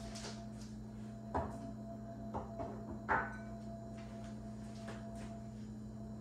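Four short knocks of kitchen things being handled and set down, the last and loudest with a brief ring, over a steady low hum.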